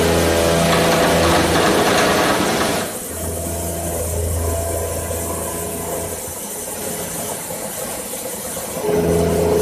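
Conventional milling machine running, its milling cutter cutting steel plate, over a steady low machine hum. The harsh cutting noise is loud for the first three seconds, drops back to the hum, and comes up again near the end.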